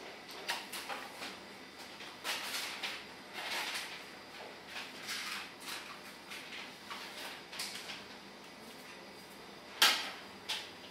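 Metal pressure roller and its ball bearing being handled and fitted by hand onto the roller arm of a SEAMTEK 36 welder: short scrapes, slides and light clinks of metal parts, with a sharp metal click near the end, the loudest sound.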